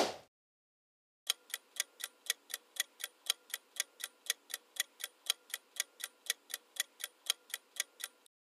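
Countdown timer sound effect: a clock ticking evenly, about four ticks a second, starting a little over a second in and stopping just before the end. A short sudden transition sound comes right at the start.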